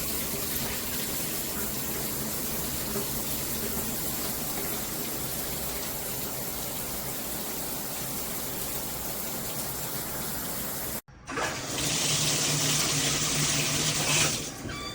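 Water spraying from a handheld filtered shower head as a steady rushing hiss. About eleven seconds in it cuts out for a moment and comes back louder and more hissy.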